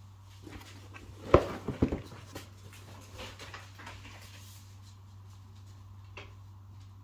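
Cardboard box being handled and turned over in the hands: a few sharp knocks and rustles a second or so in, then faint scattered taps, over a low steady hum.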